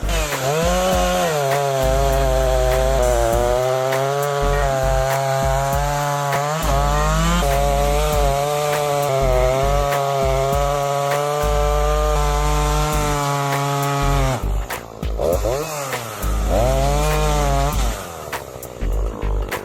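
Shindaiwa 757 two-stroke chainsaw running at high revs, cutting wood. Its pitch sags and recovers a few times as the chain loads in the cut. About fourteen seconds in it drops off briefly, then revs back up.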